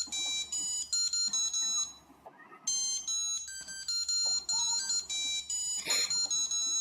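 Old Sony Ericsson mobile phone ringtone playing: a melody of bright, beeping notes that sounds like a classical piece. It breaks off for a moment a little after two seconds in, then carries on, and stops near the end.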